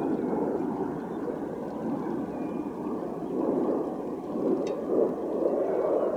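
Distant jet aircraft engine noise: a steady rushing rumble that swells slightly a few seconds in.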